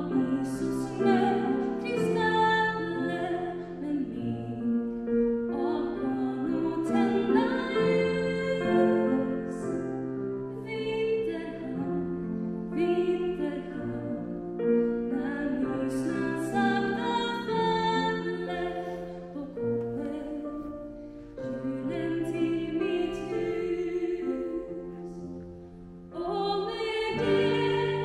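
A woman singing a slow solo song over sustained low accompaniment. The music grows louder and fuller about two seconds before the end.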